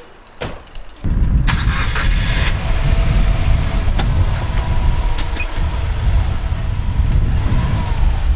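A click, then about a second in a car engine starts and runs with a loud, steady low rumble.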